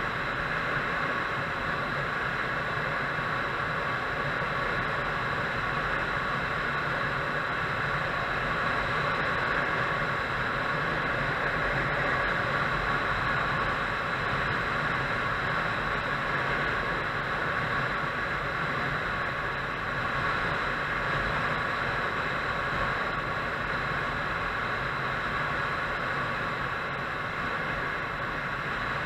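Motorcycle on the move at a steady speed: constant wind and road rush on the action camera's microphone, with the engine running evenly underneath.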